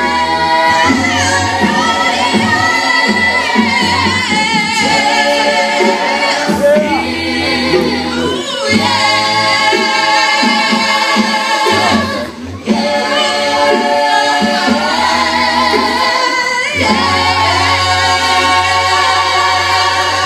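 A cappella vocal group, men's and women's voices, singing in close harmony through microphones over a low sung bass part, with held chords. There is a short break in the singing about twelve seconds in.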